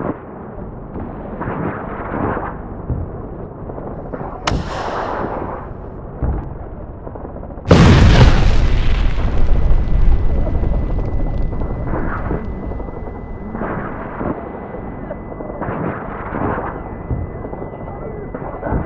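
Battle sound effects: a single sharp crack about four and a half seconds in, then a loud explosion nearly eight seconds in that dies away over several seconds, leaving a steady high ringing tone. Dull noisy swells recur every couple of seconds throughout.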